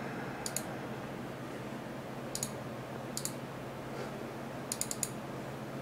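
Computer mouse clicks: a few separate clicks, then a quick run of about four near the end, over a faint steady low hum.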